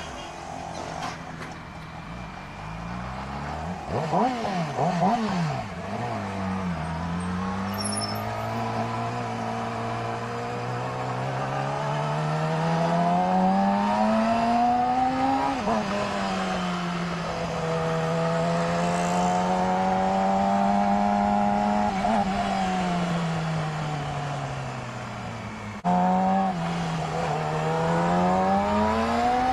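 Yamaha R6's 600 cc inline-four engine under way. There are quick rev changes about four seconds in, then the revs climb steadily to a peak about halfway through and drop back. After a steady stretch they sag, and near the end they jump up again suddenly.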